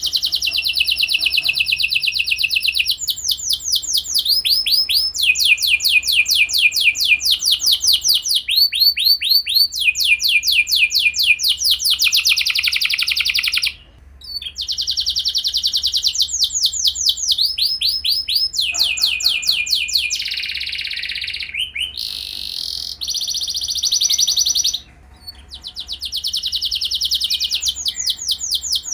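Canary singing a long song of fast trills: runs of rapidly repeated high notes, switching to a new note every second or two, with two short breaks.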